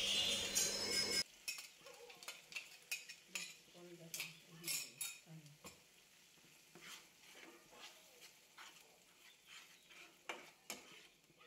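Steel spatula stirring a thick mustard, poppy seed and curd paste into fried masala in a frying pan: faint irregular scrapes and taps of metal on the pan. A steady hiss in about the first second cuts off suddenly.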